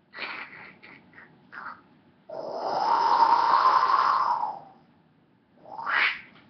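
A child making exaggerated fake snoring sounds. A few short breathy snorts come first, then one long rattling snore of about two and a half seconds, the loudest sound here, and another breathy snort near the end.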